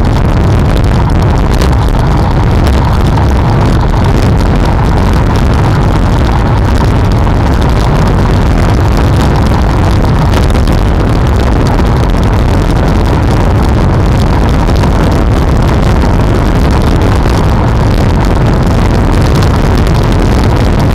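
Steady, loud wind rumble on the microphone of a camera mounted on a moving road bicycle, with the hiss of the ride underneath.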